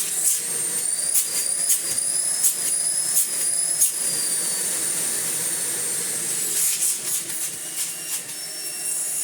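Miele Blizzard CX1 bagless vacuum cleaner running at full power with a steady high-pitched motor whine, its pleated post-motor filter replaced by a thin sheet of HEPA media to free up the airflow. Several sharp clicks sound over it in the first few seconds.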